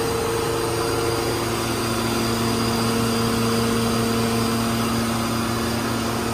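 Spindle of a 1997 Mazak FF-510 horizontal machining center running at about 5,000 RPM: a steady machine hum with several steady tones.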